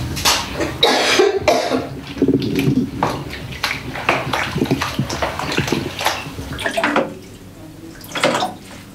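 Water splashing in a plastic basin as a child washes in it, in quick irregular splashes. It goes quieter for the last couple of seconds, with one short splash near the end.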